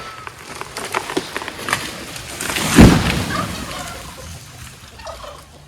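A felled tree coming down: sharp cracking and snapping of wood, then a heavy crash about three seconds in that fades away.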